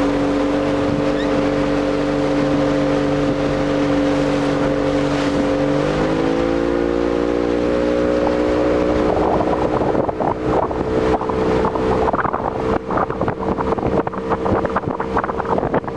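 A motorboat's engine running steadily under way. It speeds up slightly about six seconds in, and from about ten seconds in wind gusts buffet the microphone over the engine.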